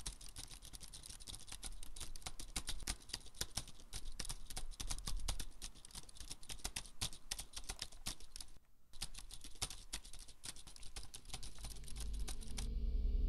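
Fast, continuous typing on a laptop keyboard, with a short pause about two-thirds of the way through. Near the end a low, steady hum rises underneath.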